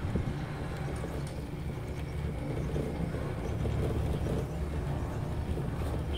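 Steady low rumble inside a moving aerial cable-car gondola cabin as it rides along the rope, with a few faint ticks.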